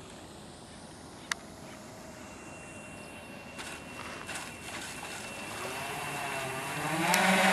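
Electric motors of a large radio-controlled Spruce Goose flying-boat model, running faintly at first as it skims the water, then speeding up to a rising whine that gets much louder about seven seconds in as power comes on. There is a sharp click about a second in.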